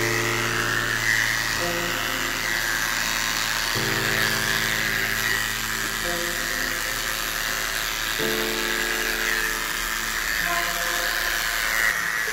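Electric dog clippers buzzing steadily as they shave through a severely matted coat. Background music of slow held chords, changing about every four seconds, plays over them.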